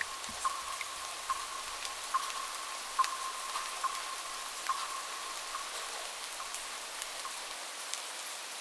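Steady rain falling, with separate drops landing sharply now and then.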